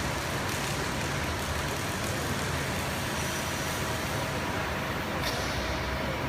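Hydraulic press brake running, a steady machine hum and hiss with faint steady tones.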